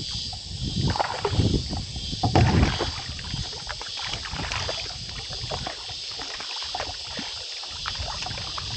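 Water lapping and knocking against the plastic hull of a Hobie Passport 12 kayak, with irregular low thumps in the first few seconds and scattered small clicks.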